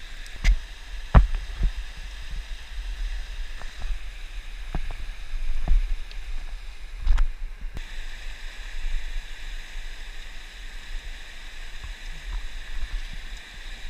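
Steady rushing noise with a low rumble, over which a handful of sharp clicks and knocks sound, the loudest about a second in. The clicks come from a metal carabiner and device being handled on a steel fixed cable.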